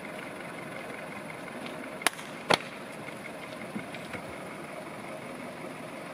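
Steady outdoor background hiss, with two sharp knocks about half a second apart a couple of seconds in.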